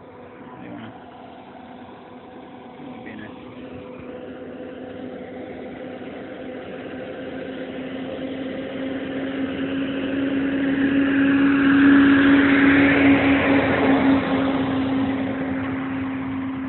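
Logging truck's diesel engine running as the truck approaches, its steady hum growing louder to a peak about twelve seconds in as it passes, then fading.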